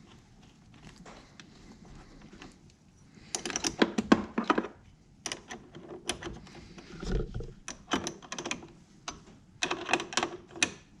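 Rapid ratcheting clicks in about four short bursts, with quieter gaps between them, and a low thump a little past the middle.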